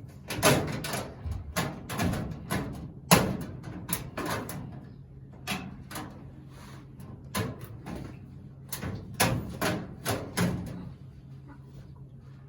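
Irregular knocks and clatter, more than a dozen sharp hits, the loudest about three seconds in, over a steady low hum; the knocking stops shortly before the end.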